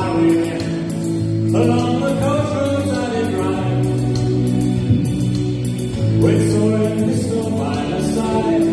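A man singing into a microphone over sustained backing chords with no visible instruments, in two phrases: one beginning about a second and a half in, the other about six seconds in.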